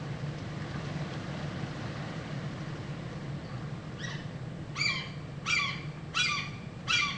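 A bird calling in a fast series of short, harsh, evenly spaced notes, about one every 0.7 seconds, starting a little past halfway and carrying on. A steady low hum runs underneath throughout.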